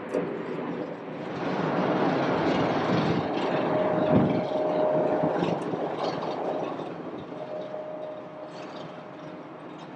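Jet airliner engine noise builds to a peak a couple of seconds in, then slowly fades, with a thin steady whine heard at times.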